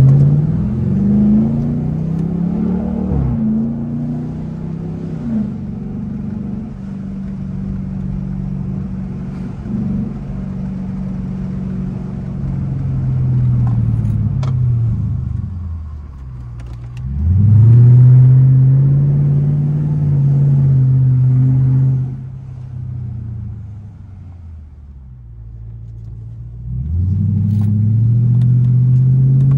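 Straight-piped 5.7-litre HEMI V8 of a 2021 Dodge Durango R/T, heard from inside the cabin, accelerating three times: at the start, about halfway through and near the end. Each time the loud exhaust note rises quickly and holds while cruising, then sinks as the truck slows.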